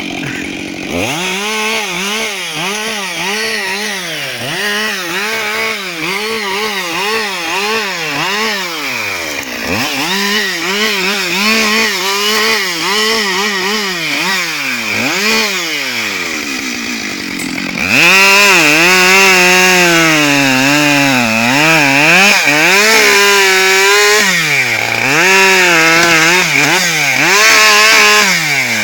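Husqvarna 572XP two-stroke chainsaw revving up and down in quick repeated cuts while limbing a felled trunk, its pitch rising and falling with each cut. About two-thirds of the way through it gets louder and holds high revs for longer, with a few short drops.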